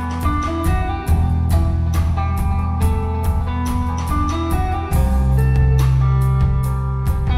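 Band playing an instrumental passage: guitar notes over a sustained bass and a steady drum beat of about three hits a second. The bass moves to a new note about five seconds in.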